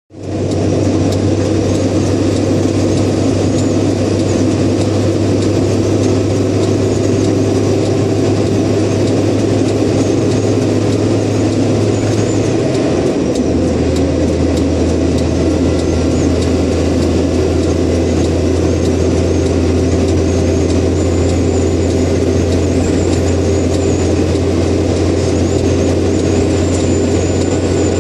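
Tow truck driving along a motorway: a steady engine drone over road and tyre noise. The engine's low note steps down in pitch about halfway through.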